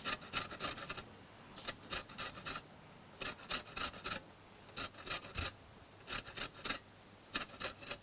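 Lime rind being grated on a stainless steel box grater: quick rasping strokes in bursts of four or five, with short pauses between.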